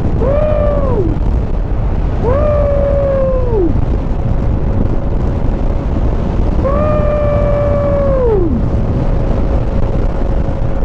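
A man's voice giving three long, drawn-out vowel calls, each rising in pitch, holding, then sliding down, the last one the longest. Under them is the steady rush of wind on the microphone and the motorcycle running.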